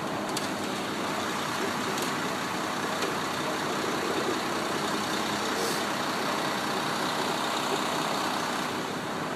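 Large truck engine running steadily, with street traffic noise.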